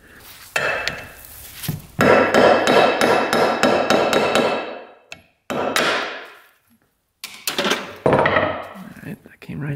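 A hammer striking metal four or five times while the seal is knocked out of a dirt bike's clutch cover. Each blow leaves a ringing metallic tone that dies away over a second or two; the blow about two seconds in is the loudest and rings longest.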